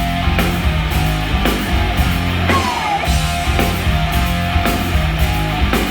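Rock trio playing live on electric guitar, bass and drums, an instrumental stretch of the song with a steady drum beat of about two hits a second. A short falling pitch glide, like a guitar slide, comes about two and a half seconds in.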